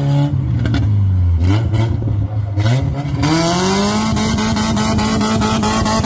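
Small hatchback's engine revving hard while the car sits stuck with its wheels spinning in soft sand. The engine note dips at first, then climbs steeply about three seconds in and is held high and steady.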